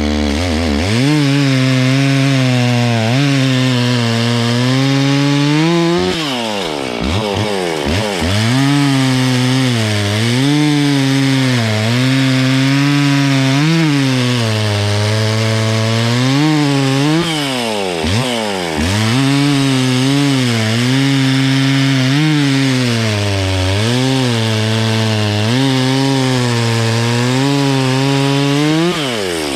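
Gas chainsaw running at high revs while cutting through a downed tree. Its pitch repeatedly dips and recovers as the chain loads up in the wood, drops off briefly twice, and falls away near the end as the throttle is released.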